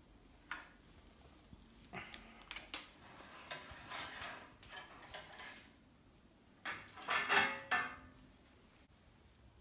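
Steel workshop tools clinking and scraping as a headset press is worked in a steel bicycle frame's head tube, in short irregular clatters. The loudest clatter, with a brief metallic ring, comes about seven seconds in.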